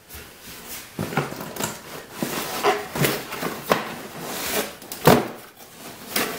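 Packaging handled in a large cardboard box: a series of rustles and knocks against the cardboard, the loudest thump about five seconds in.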